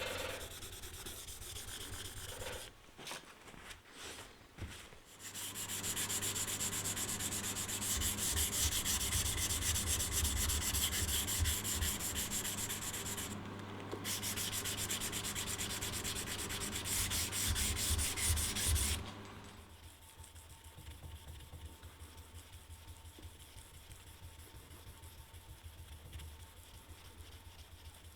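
Abrasive sanding in knife-making work: a steady, gritty rubbing that starts about five seconds in and stops about nineteen seconds in. A few light knocks come before it, and a quiet low hum follows.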